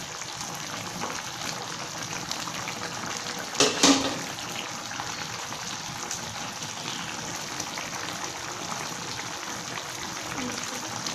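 Spiced broth with chicken feet boiling steadily in a pot, a constant bubbling crackle as the liquid reduces. A brief louder clatter about four seconds in.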